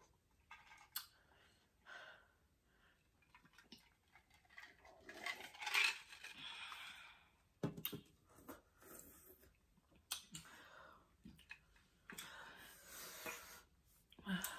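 Hard breathing and air blown out through the lips in hissy bursts, from a mouth burning after very spicy noodles, with a few light clicks in between.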